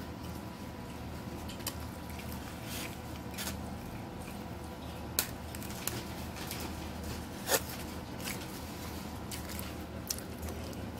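Eating from a styrofoam takeout box: a plastic fork makes scattered short clicks and scrapes against the foam, the sharpest about seven and a half seconds in, over a steady low background.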